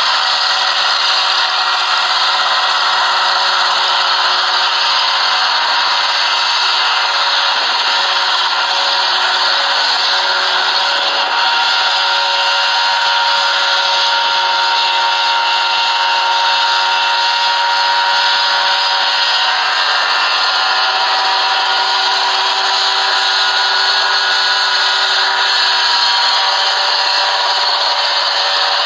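Small single-seat ultralight helicopter's engine running steadily while it hovers just above the ground, a continuous buzz whose pitch drifts slightly as the pilot holds the hover.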